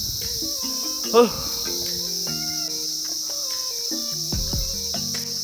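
Steady high-pitched drone of forest insects. A short voice-like call rises above it about a second in.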